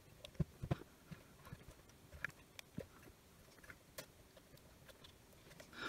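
Faint, irregular small clicks and taps as rubber screw-cover plugs are picked out of the plastic case of a FLIR thermal-imaging multimeter by hand.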